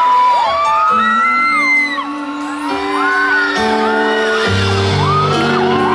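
Live band opening a ballad with sustained keyboard chords, a bass line coming in about halfway through, over an audience whooping and screaming.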